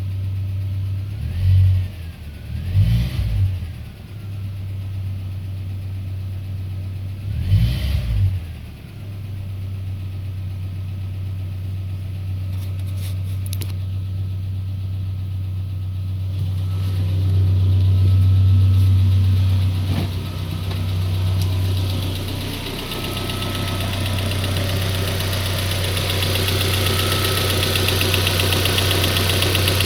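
Peugeot 407's 2.2-litre petrol four-cylinder engine running cold with a knock, which the owner thinks is probably the cam phaser. Three louder thumps come in the first eight seconds, and a hiss builds toward the end.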